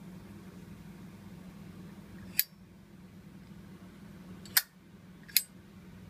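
Three sharp metal clicks from a Zippo lighter's hinged lid being flicked open and snapped shut: one about two and a half seconds in, then two close together near the end.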